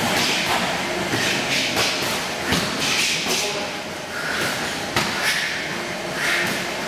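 Kickboxing sparring: gloved punches and shin-guarded kicks land as irregular sharp thuds, with short hissing swishes between them as the fighters move on the plastic-sheeted mat.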